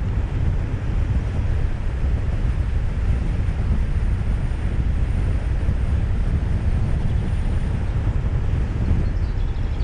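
Steady low rumble of a car driving along the road: tyre and wind noise with no change in speed.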